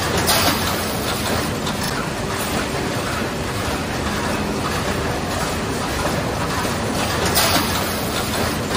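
Müller Martini Ventura Connect book sewing line running: a steady mechanical clatter of the gathering, conveying and sewing machinery. Two short hisses rise above it, one just after the start and one near the end.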